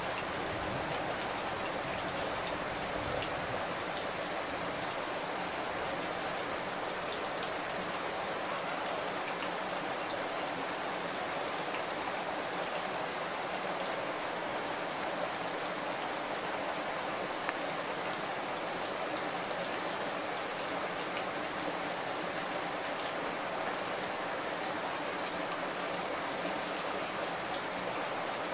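Steady rushing noise of running water, unchanging throughout, with one faint click about two-thirds of the way in.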